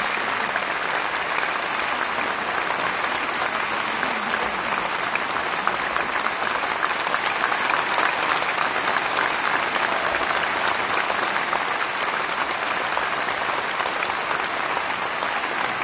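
Large audience applauding, a dense, steady mass of hand claps.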